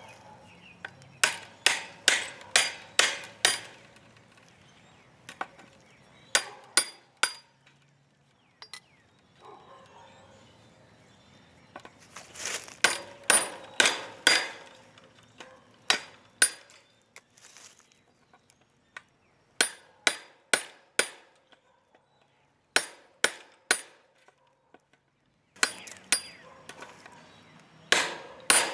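Metal-on-metal hammer blows on fencing pliers, driving the hook in behind fence staples to pry them out. The blows come in bursts of four to eight quick, ringing strikes, about three a second, with short pauses between bursts.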